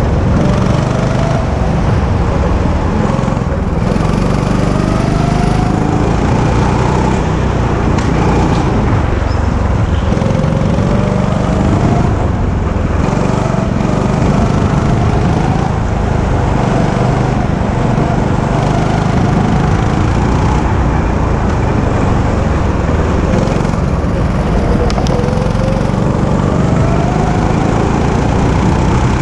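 Go-kart engine running hard, heard from the kart itself, its pitch rising again and again as it accelerates out of the corners, over a heavy rumble of vibration on the kart-mounted microphone.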